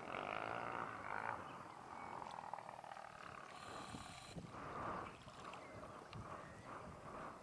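A dog rolling on its back and rubbing its head and body in sand, making uneven scuffing and rustling sounds with a few small ticks from grit and pebbles.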